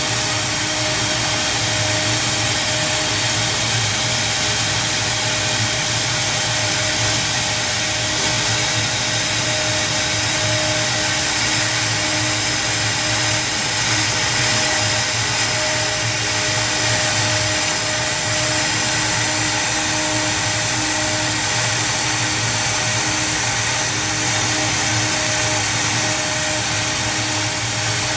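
CNC router spindle running steadily at high speed, with a small 1/16-inch end mill cutting 0.2-inch plywood. A steady high whine sits over the hiss of the cut.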